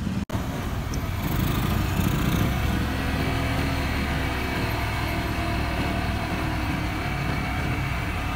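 Small motorcycle engine running steadily while riding, with a hiss of wind and road noise. The audio drops out briefly just after the start.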